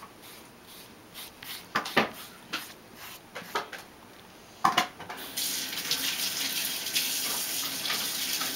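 A few sharp clicks and taps, then about five seconds in, water starts running steadily, as from a tap.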